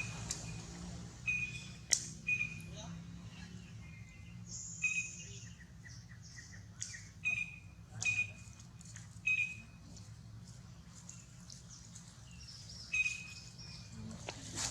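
Short, high-pitched chirping calls, each a fraction of a second on one pitch, repeated irregularly about once a second. Sharp clicks and a steady low hum run underneath.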